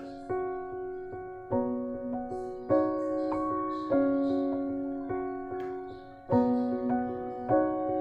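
Background piano music: a slow melody of struck notes that ring and fade, a new note or chord about every second.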